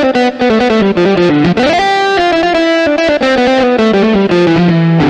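Yamaha PSR-S770 arranger keyboard played live with a distorted electric guitar voice: a quick run of notes falling in pitch, an upward slide in pitch about a second and a half in, then held notes and more quick notes.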